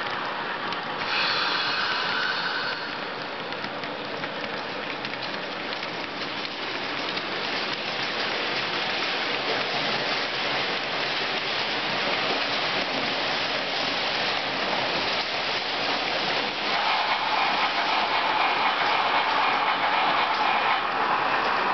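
Model freight trains rolling past on a model railway: a steady, dense rattle of many small metal wheels running over the rails and track joints. It grows louder and brighter about three quarters of the way through as closer wagons pass.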